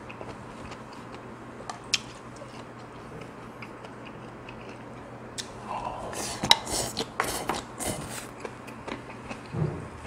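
Close-up eating sounds: light clicks of chopsticks in a stainless steel bowl of bibimbap, then about six seconds in a run of loud smacking and slurping as a big mouthful goes in and is chewed.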